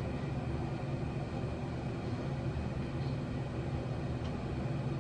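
Steady low rumbling background noise that is even throughout and loud enough to dominate the audio.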